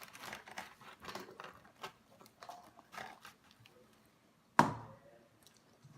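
Irregular crackling and clicking over the first three seconds, then a single sharp knock, the loudest sound, about four and a half seconds in.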